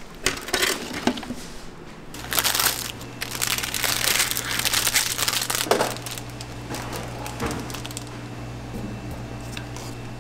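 A few sharp plastic knocks as a lid is handled over a clear plastic food tub, then loud crinkling of plastic film as a gloved hand tears open a wrapped pack of sliced American cheese. A steady low hum sets in about two seconds in.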